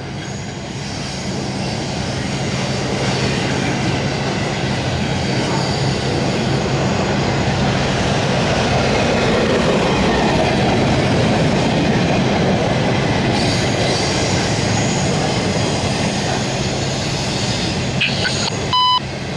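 The cars of a CSX intermodal freight train rolling past: a steady rumble of steel wheels on rail with clickety-clack and some wheel squeal, growing louder toward the middle. A short electronic tone sounds just before the end.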